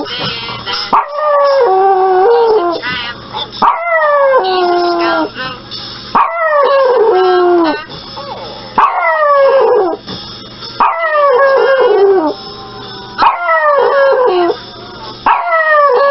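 Pomeranian puppy howling: a string of about seven drawn-out, high calls, each sliding down in pitch, one after another with short pauses.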